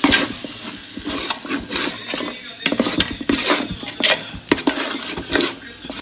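Metal spoon stirring and scraping thick, wet biryani masala in a large aluminium pot, in quick irregular strokes, mixing the beef cooking water into the masala.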